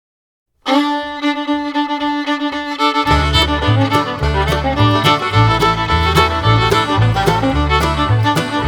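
Background music: a fiddle tune that starts about half a second in, with bass and a rhythm joining about three seconds in.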